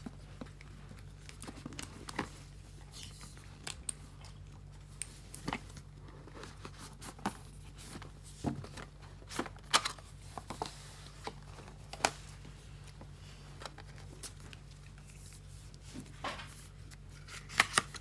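Cardboard packaging being handled: a box and its inner tray slid apart and cardboard inserts lifted out, with scattered scrapes, taps and rustles. The sharpest clicks come about ten and twelve seconds in, with a cluster near the end, over a steady low hum.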